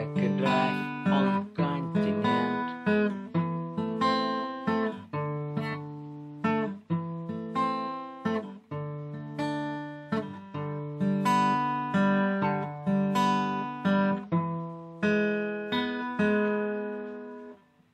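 Acoustic guitar strumming chords, each one ringing and decaying; near the end the last chord fades out.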